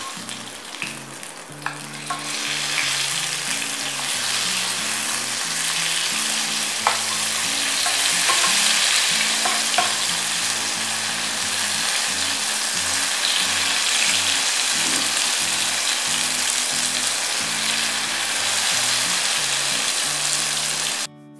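Brinjal (eggplant) slices shallow-frying in oil in a pan: a steady sizzle that grows louder about two seconds in as the slices are turned over, with a few clicks of a spoon against the pan.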